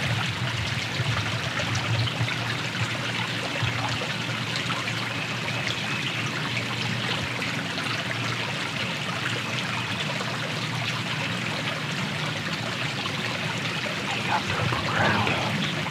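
A creek running steadily, an even rush and trickle of flowing water, with a brief louder sound near the end.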